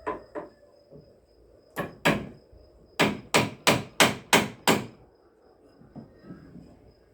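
Hammer blows on wood: two strikes, a short pause, then a run of six quick, even strikes at about three a second.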